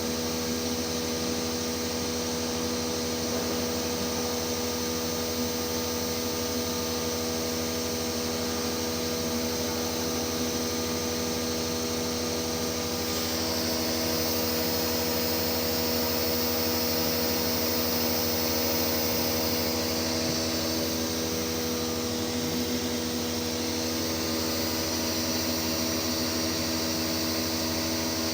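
CNC machine running steadily: a hum of several motor tones over a hiss. About halfway through, the hiss grows brighter and a little louder, and some of the tones shift in pitch.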